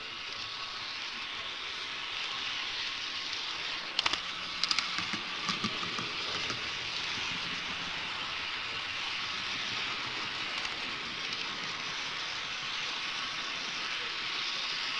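HO-scale model train running along the track, heard up close from a camera riding on it: a steady rushing noise of wheels and motor, with a cluster of sharp clicks about four to six seconds in.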